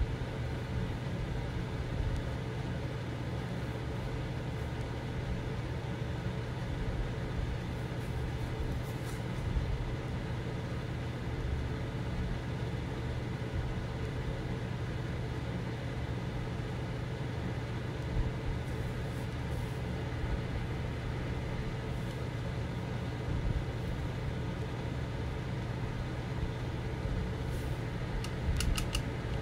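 Steady low mechanical hum, even throughout, with a few faint clicks near the end.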